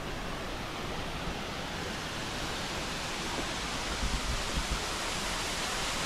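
Doodhani waterfall pouring steadily: an even, dense rush of falling water. A few low bumps come about four seconds in.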